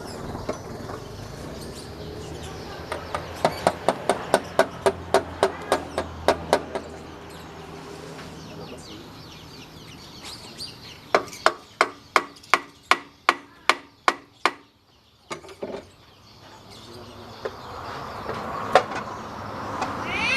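Hammer blows struck in two steady runs of about a dozen each, roughly three strikes a second, with a pause between the runs.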